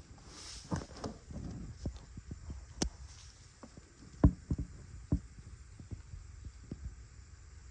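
Irregular light knocks and taps, with one sharper knock about four seconds in and a brief hiss near the start.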